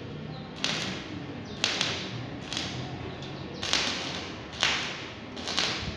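Stick (shielded metal arc) welding on square steel tubing: the arc crackles and sizzles continuously, with louder hissing surges about once a second.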